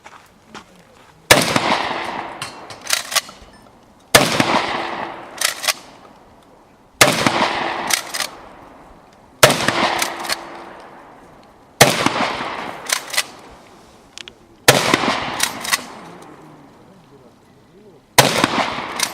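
Benelli shotgun fired seven times at a steady pace, a shot every two and a half to three and a half seconds, each blast echoing briefly. About a second and a half after each shot come two or three smaller sharp clicks or clangs.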